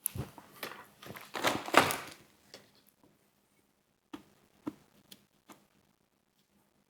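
Biting into a KFC potato nugget with a fried outer shell: a quick run of crunches, loudest near two seconds in, then a few soft chewing clicks.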